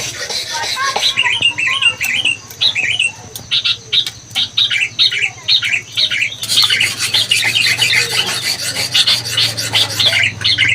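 Lorikeet chattering: a rapid run of short, shrill calls, getting busier about six seconds in, over a steady low hum.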